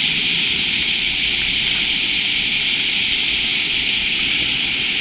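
River water rushing steadily past a gravel bank, a constant hiss-like flow; the river is running high after heavy rain upstream.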